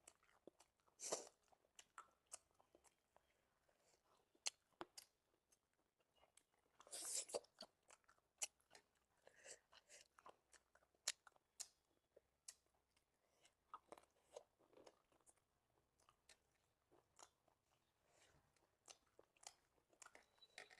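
A person eating close to the microphone: quiet chewing with many small mouth clicks, and louder crunchy bites about a second in and again about seven seconds in.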